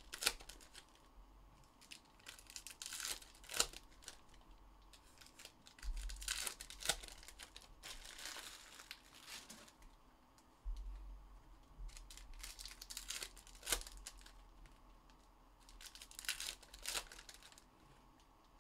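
Plastic trading-card pack wrappers crinkling and tearing as packs are opened and the cards handled, in irregular bursts with a few sharp clicks.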